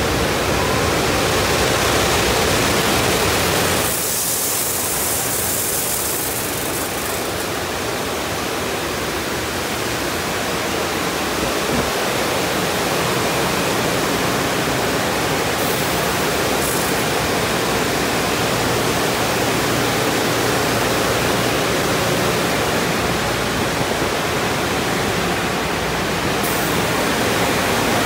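Steady rushing noise of a conveyor tunnel car wash heard from inside the car: water spraying and spinning cloth wrap brushes working on the body. A brighter, louder hiss of spray comes in for a few seconds about four seconds in.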